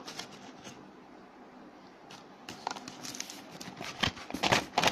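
Paper and plastic gift wrapping being handled, rustling and crinkling. Quiet for the first couple of seconds, then a run of short sharp crackles that grows busier toward the end.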